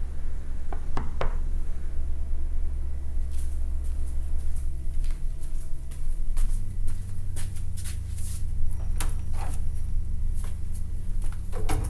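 A steady low rumble that shifts to a higher pitch about six seconds in, with many short clicks and knocks over it, thickest through the middle.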